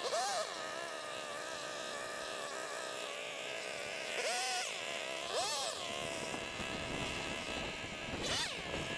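Small two-stroke engine of a handheld cutting tool running steadily while brush is cut back. It is briefly revved up and let back down a few times, near the start, around four and five and a half seconds in, and near the end.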